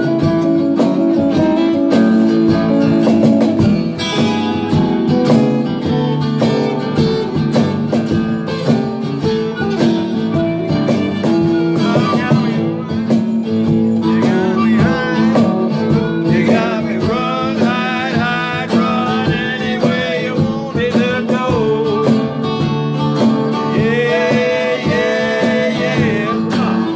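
Live band playing with guitars strumming a steady chord rhythm. In the second half a bending, wavering lead line rises over the chords.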